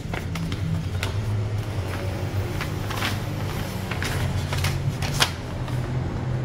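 A folded paper instruction leaflet being unfolded and handled, crinkling and rustling in short irregular crackles, over a steady low hum.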